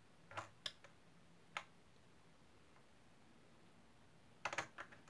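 A few small, sharp clicks and taps from fingers handling the parts of a diecast model truck cab: three quick clicks in the first second, one more about a second and a half in, and a rapid little cluster near the end, with near silence between.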